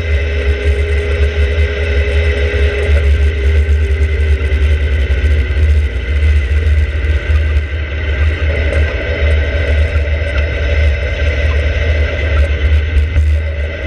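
Open-cockpit kit sports car driving at speed on a race circuit: heavy wind buffeting on the microphone over the engine and road noise. A steady engine tone sags and fades a few seconds in.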